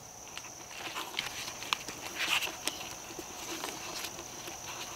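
Paper rustling and crinkling with light taps and scratches as a paper musket cartridge is rolled and folded around a wooden former on a wooden tabletop. The loudest rustle comes about halfway through. A steady high insect drone runs underneath.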